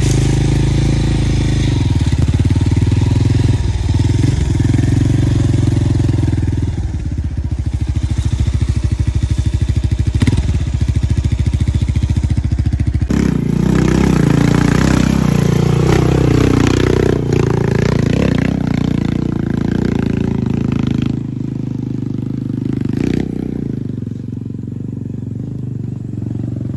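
Motorcycle engine running steadily while riding. About halfway through, louder motorcycle engine noise whose pitch falls and then rises again as the bike slows and picks up; in the last few seconds the engine sound fades to a quieter background.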